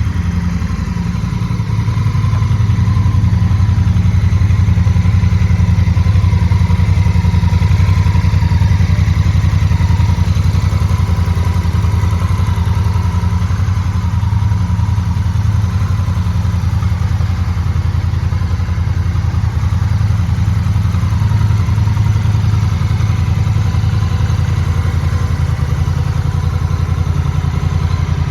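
2022 Honda Rebel 1100 DCT motorcycle's 1,084 cc parallel-twin engine idling steadily, a little louder from about two seconds in.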